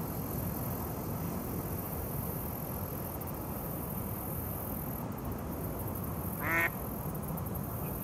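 A single short mallard duck quack about six and a half seconds in, over steady outdoor background noise.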